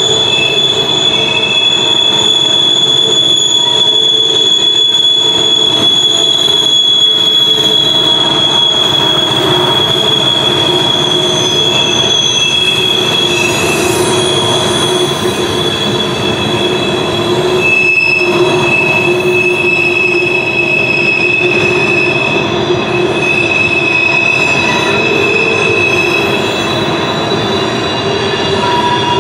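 A long string of coal hopper cars rolling past on a tight curve. The wheel flanges squeal in several steady high pitches that come and go, over the continuous rumble and clatter of the wheels.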